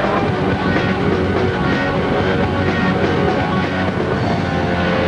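Background music playing continuously at a steady level.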